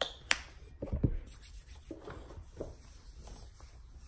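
A sharp click and a few low knocks near the start, then the soft rubbing of hands working lotion into the skin.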